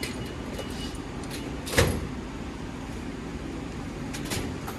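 Scattered clicks and knocks of tools and parts being handled during a motorcycle teardown, with one louder sharp knock about two seconds in, over a steady low hum.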